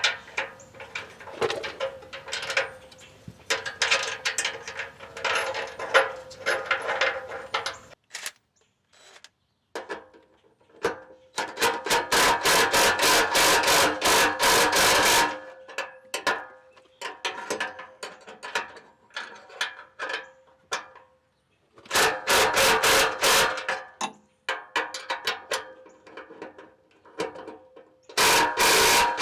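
A ratchet tightening the bolts on the exhaust pipe flange joints, clicking quickly in several runs of a few seconds each, the longest about a third of the way in.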